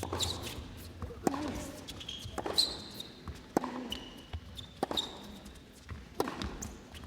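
Tennis rally: sharp racket strikes and ball bounces about once a second, with players' shoes squeaking on the court.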